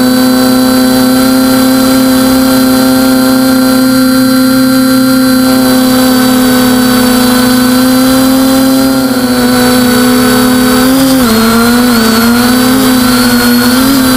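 TBS Discovery quadcopter's brushless motors and propellers whining steadily in flight, heard close up from the onboard camera. About 11 seconds in, the pitch dips and wavers for a few seconds as the throttle changes during a turn, then settles again.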